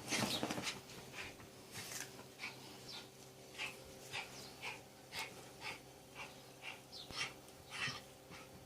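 A dog breathing hard in short, noisy puffs, about two a second, with a louder burst at the start.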